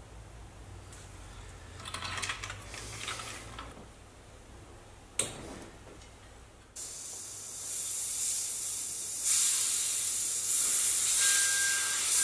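Light handling noises and a single sharp click, then a steady hiss of pressurized air escaping from a brake pressure-bleeding setup. The hiss starts suddenly partway through and grows louder, and a thin steady whistle joins it near the end.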